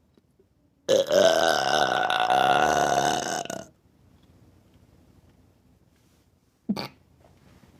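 A long, loud burp of about three seconds, wavering in pitch. A brief, sharp sound follows a few seconds later.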